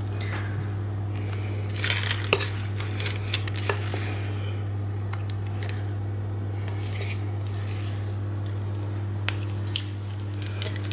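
A spatula scraping thick brownie batter out of a glass mixing bowl, with scattered clicks and taps of the utensil against the glass, over a steady low hum.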